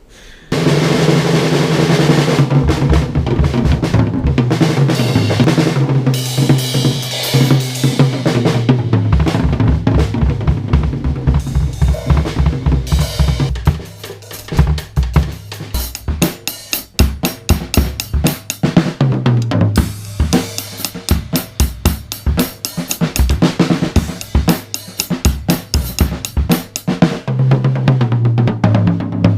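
Loud rock music driven by a drum kit: fast bass drum and snare hits with cymbals over held low notes. It starts suddenly about half a second in. Called "that racket".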